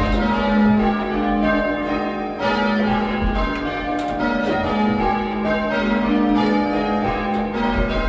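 Six bells rung in a method (change ringing), struck one after another in a steady rhythm, their tones overlapping and ringing on.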